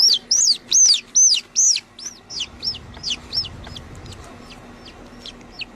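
A bird giving a rapid series of high, arching calls, about three a second, loudest over the first two seconds and then fading.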